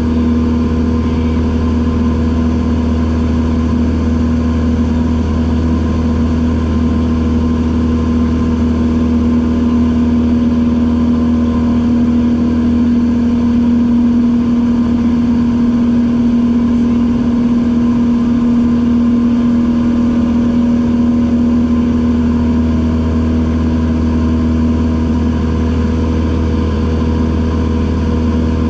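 Single-engine light aircraft's piston engine and propeller droning steadily in flight, heard from inside the cockpit cabin: a constant-pitch hum that does not change.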